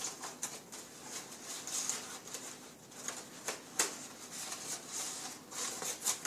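Paper pieces of an IQ lamp rustling and crinkling as they are handled and slotted together, with a couple of sharper paper crackles about three and a half seconds in.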